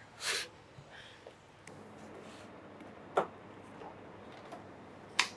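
Quiet room tone broken by a short rustle at the start and a few sharp clicks: one about three seconds in and two in quick succession near the end.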